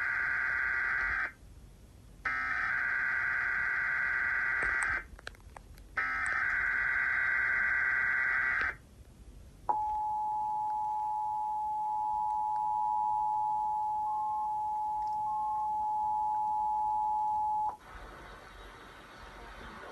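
Emergency Alert System tones from a broadcast test: three bursts of screechy digital SAME header data, each a little under three seconds with short gaps. Then comes the steady two-tone EAS attention signal, held for about eight seconds before it cuts off sharply. Together they open a Required Monthly Test.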